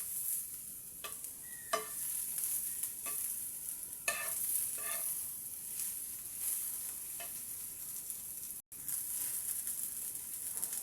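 Fish frying in hot oil in a frying pan, a steady sizzle with a few short clicks of a utensil against the pan. The sound drops out for an instant near the end.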